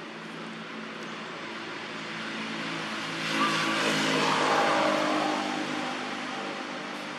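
A motor vehicle's engine passing by: a steady low hum that swells louder about three seconds in, peaks, then fades away near the end.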